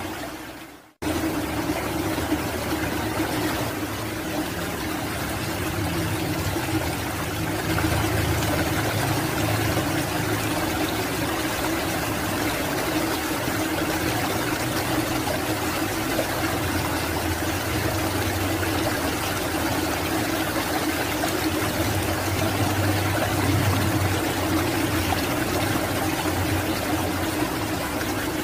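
Steady rushing of flowing water with a continuous low rumble, dropping out briefly about a second in.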